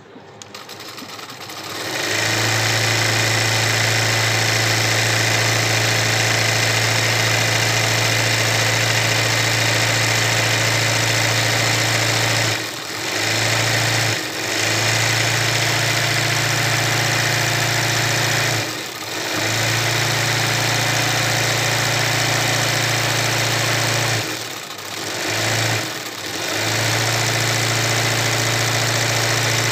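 Electric sewing machine stitching fast and steadily during free-motion embroidery on hooped fabric. It speeds up over the first two seconds, then briefly slows or stops about five times, near the middle and toward the end.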